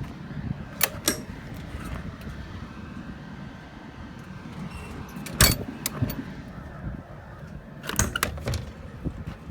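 Metal clanks and rattles from handling the truck's service-body compartments, with the loudest knock about halfway through and a quick cluster of clanks near the end, over a low steady rumble.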